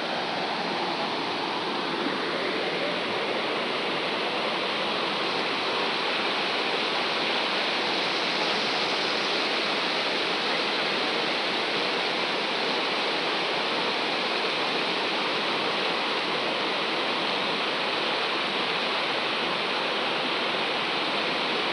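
Shallow, rocky river rushing over stones and small rapids: a steady, even sound of running water.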